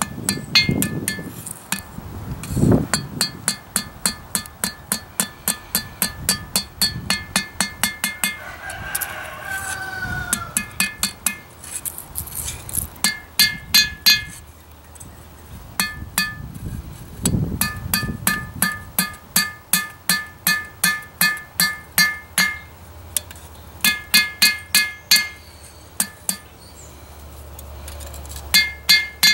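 Ball-peen hammer forging a steel knife blade on an anvil, about two to three blows a second in runs with short pauses, each blow ringing the anvil. A rooster crows once about nine seconds in.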